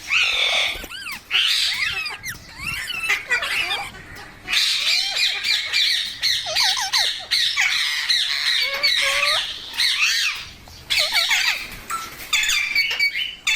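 Green ringneck parrot squawking and calling almost without pause: a rapid string of shrill, harsh calls with quick up-and-down pitch sweeps, with a couple of brief lulls.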